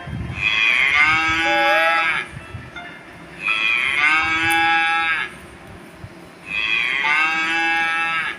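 Cow mooing three times, each moo a long, steady call of about two seconds with short pauses between.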